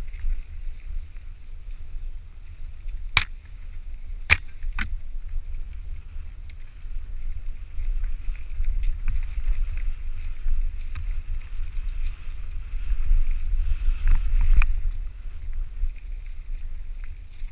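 Mountain bike riding along a trail: a heavy low rumble of wind and movement on the microphone with a steady high buzz over it, and three sharp clicks or knocks between about three and five seconds in.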